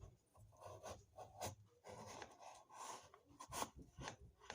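Faint rustling and scratching with scattered light clicks.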